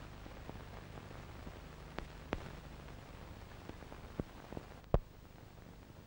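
Faint hiss and low hum from an old film soundtrack running out on blank leader, with scattered pops and clicks, the loudest about five seconds in.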